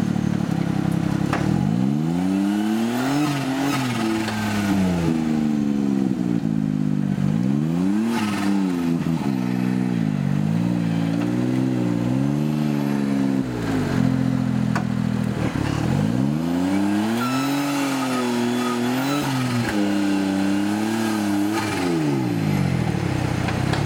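Suzuki Jimny trial truck's engine revved up and down over and over as it crawls a steep off-road obstacle, dropping back to a steady idle between the pushes, notably around a third and two-thirds of the way through.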